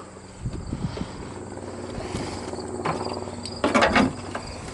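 Isuzu Impulse RS AWD's turbocharged engine idling steadily, with a brief louder sound near the end.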